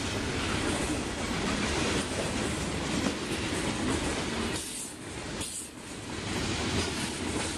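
Freight train tank cars rolling past close by, steel wheels running on the rails in a continuous rumble that dips briefly about five seconds in.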